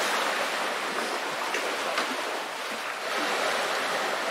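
Small sea waves washing against shoreline rocks and pebbles, a steady surf hiss.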